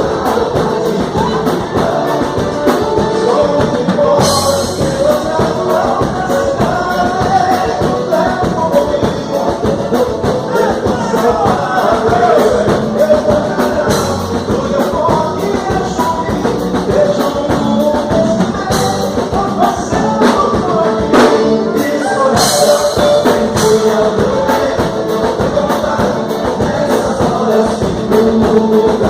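Vaneira dance music with a male-style sung vocal over a quick, steady beat, playing without a break.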